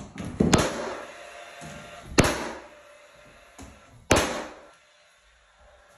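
Paslode cordless finish nailer firing three times, about a second and a half to two seconds apart, each a sharp crack with a short ring-off, driving finish nails through a prehung door's jamb into the framing.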